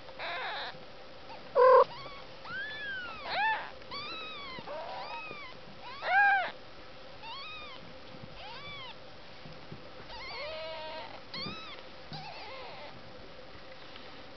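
Newborn kittens mewing: about a dozen short, high calls, each rising and falling in pitch. The loudest are near the start and about six seconds in.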